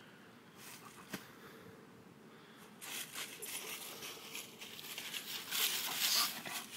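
Dry fallen leaves rustling and crunching as a dog moves about in them close to the microphone, starting about three seconds in and growing louder near the end.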